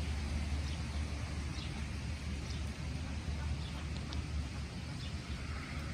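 Outdoor ambience: a steady low rumble under a soft even hiss, with a few faint, short high chirps scattered through.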